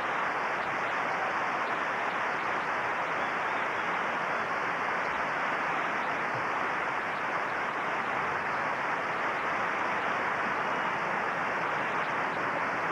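A large crowd applauding steadily, a continuous wash of clapping and cheering.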